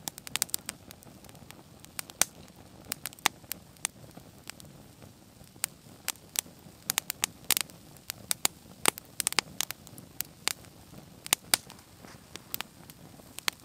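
Red squirrel gnawing a pine cone, stripping off its scales in irregular sharp clicks and crunches, often several a second.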